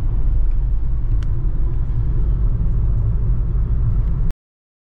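Low, steady rumble of a car on the move, the 2008 Nissan Grand Livina being driven along the road. The sound cuts off abruptly about four seconds in.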